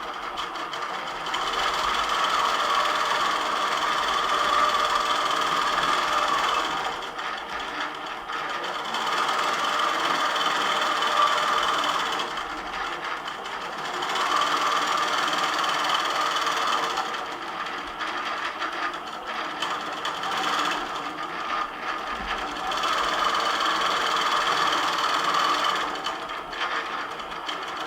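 Longarm quilting machine stitching a pantograph pattern, its needle and motor running steadily, getting louder and quieter every few seconds as it stitches.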